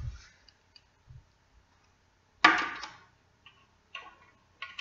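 Handling of a screwdriver and wires at the back of a CRT television: light clicks and taps, with one loud sharp clack about halfway through that dies away within half a second.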